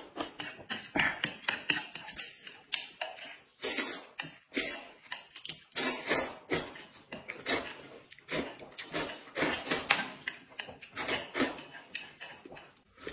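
Noodles and sauce being slurped and sucked from a plate, with smacking and chewing noises, in quick irregular bursts.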